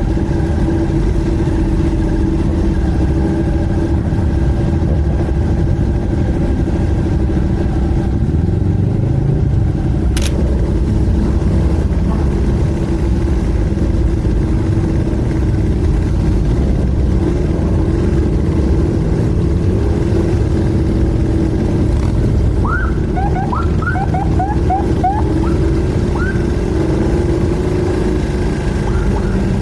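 Motorcycle engine running at a steady pace over a heavy low rumble, heard from the rider's seat in city traffic. A single sharp click comes about ten seconds in, and a quick string of short rising chirps about twenty-three seconds in.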